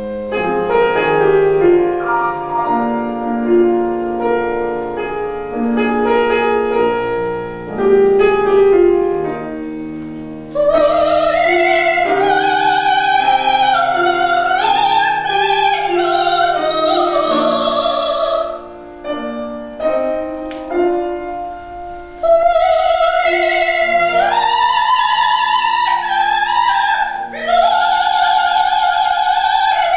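Solo grand piano playing a zarzuela romanza introduction, then a soprano enters about a third of the way in, singing long phrases with wide vibrato over the piano accompaniment. A short piano passage separates two of her phrases.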